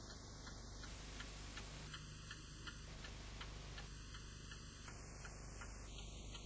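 Clock ticking faintly, with fast, even ticks.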